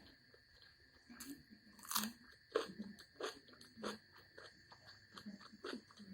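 Close-miked chewing and biting of crunchy food: a string of crisp crunches at an uneven pace, the loudest about two seconds in.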